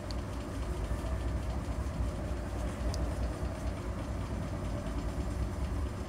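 Steady low background rumble, with a couple of faint ticks.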